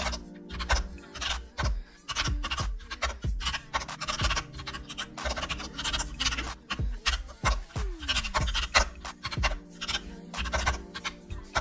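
Rapid, irregular clatter of computer keyboard keys being typed, over soft background music.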